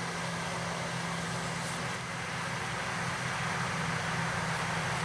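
Electric blowers on a wood gasifier running steadily, forcing air through the fuel bed to make gas during a cold startup: a steady low hum with a rushing air sound, a little louder about three seconds in.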